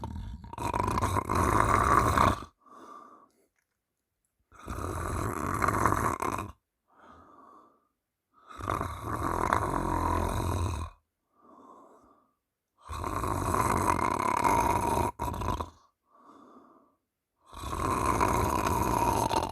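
A sleeping woman snoring loudly on each in-breath, about five snores, one every four seconds or so. Each snore carries a steady buzzing pitch and is followed by a short, much fainter out-breath.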